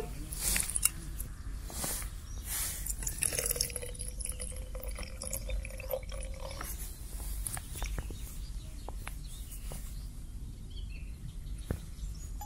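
Water poured between a stainless steel thermos and a small metal cup of soaked grain bait, with a steady pouring tone for a few seconds in the middle. Light clinks and clicks of the metal vessels being handled come throughout.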